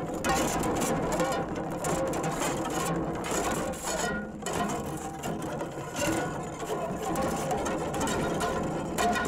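Electro Tumbleweed, an experimental instrument of seven carbon fibre rods on a 3D-printed PLA core, played continuously: a dense, machine-like rattling buzz with many ringing tones and scattered clicks.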